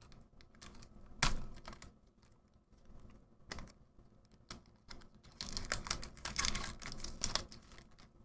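Foil wrapper of a Magic: The Gathering Double Masters booster pack being torn open by hand: a few separate crackles, then a dense run of crinkling from about five and a half to seven and a half seconds in.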